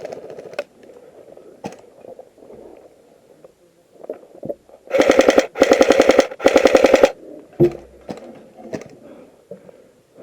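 Airsoft AKM rifle firing three short full-auto bursts in quick succession, about five seconds in.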